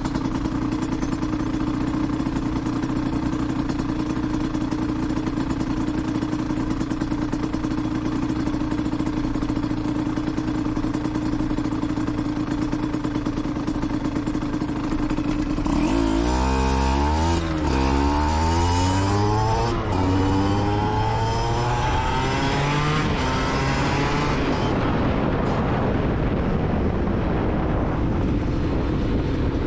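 Aprilia SX 125's 125 cc single-cylinder two-stroke engine, through an Arrow exhaust, running at a steady speed for about half the time. It then revs up and drops back several times in quick succession before settling to a steady note again.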